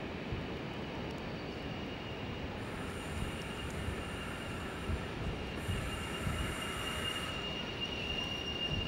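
InterCity Mark 3 Driving Van Trailer and its coaches rolling slowly through the station over a low rumble, with a steady high-pitched squeal from the wheels that grows louder near the end.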